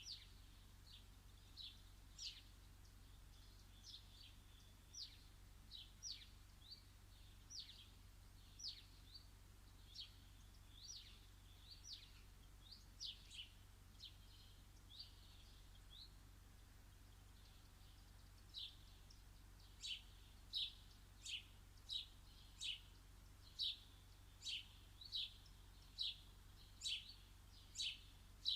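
Bird chirping repeatedly: short, high, downward-sliding chirps about once a second, coming faster and louder from a little past halfway.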